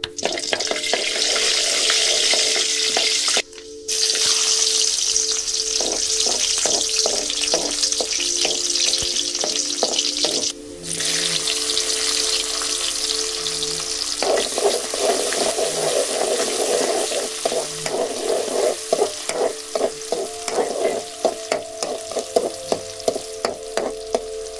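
Shallots and garlic sizzling loudly in hot oil in a black iron wok, with scattered light taps as pieces drop in and are stirred. The sizzle cuts out briefly twice.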